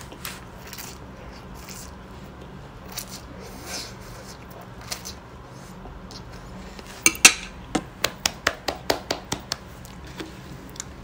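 Noodles being slurped and chewed. About seven seconds in comes a clatter of chopsticks set down on a wooden plate, then a quick run of about ten sharp plastic clicks as the screw cap of a plastic drink bottle is twisted off.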